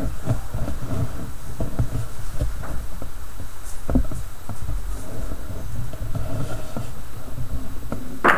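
Microphone handling noise from a handheld camera being moved: an uneven low rumble with scattered soft knocks and bumps.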